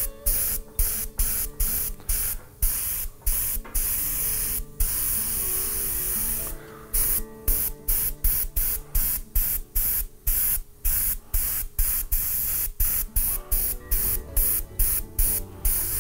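Airbrush spraying white acrylic paint in short hissing bursts as the trigger is pulsed on and off, about two to three times a second, with one unbroken spray of nearly two seconds about five seconds in.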